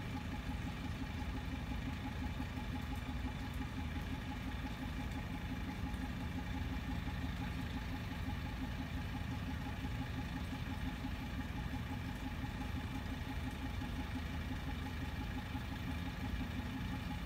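Steady machine hum, like an idling engine: a low rumble with a few fixed tones above it that holds unchanged throughout.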